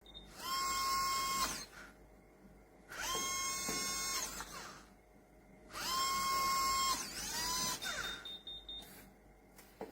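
Small electric motor of a motorized deadbolt lock whirring three times, about a second each run with a quick spin-up and spin-down, as the bolt is driven in and out. A short high beep follows near the end.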